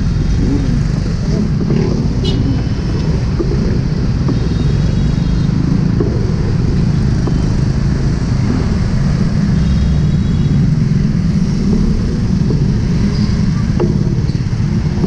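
Motorcycle, scooter and car engines idling and creeping along in heavy, stop-and-go traffic: a steady low rumble.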